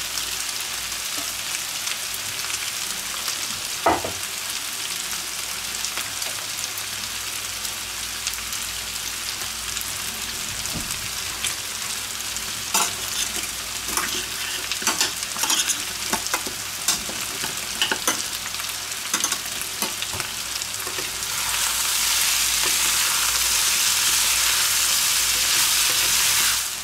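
Strips of gyros meat and onions sizzling steadily in a frying pan, with a sharp knock about four seconds in and scattered clicks and clinks of utensils against a pot. Near the end the sizzle grows louder for about five seconds as the meat is stirred with a wooden spatula.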